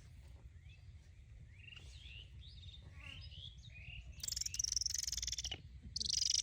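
Birds chirping in short, gliding high calls. About four seconds in, a louder, rapid, high-pitched buzzing trill starts, stops after about a second and a half, and returns briefly near the end.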